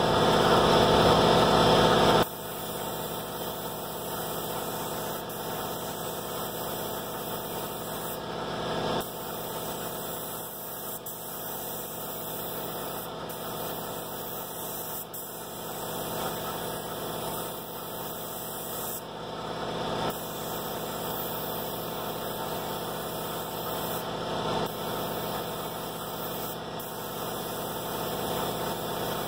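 An air compressor runs loudly, then cuts off about two seconds in. What is left is the steady hiss of a gravity-feed paint spray gun, which stops for a moment a few times between passes.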